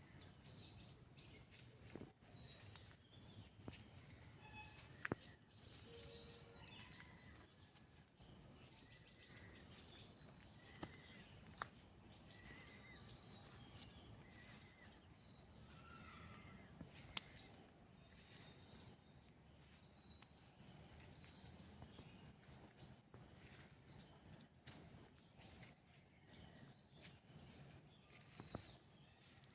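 Faint outdoor ambience of insects chirping in an even, repeating high-pitched pulse, with scattered short bird chirps and a few soft clicks.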